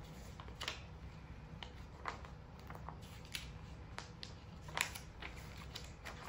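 Paper instruction leaflet being unfolded and leafed through: scattered short rustles and crinkles, the loudest a little before five seconds in.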